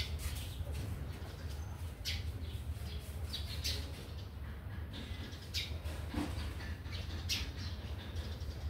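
Small birds chirping, short sharp high calls every second or so, over a steady low hum.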